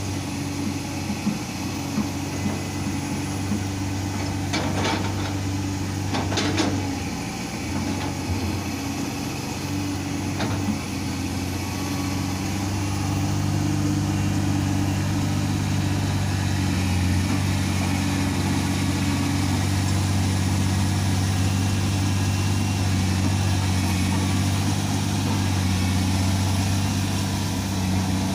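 Komatsu excavator's diesel engine running steadily, with two sharp knocks about five and six and a half seconds in. About twelve seconds in the engine note rises and stays louder.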